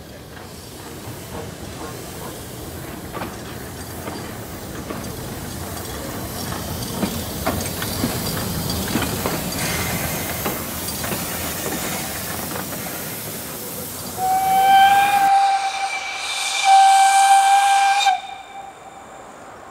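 Steam locomotive hissing steam, growing louder, with scattered clicks; then its steam whistle sounds two steady blasts, one note each, the second about a second and a half long.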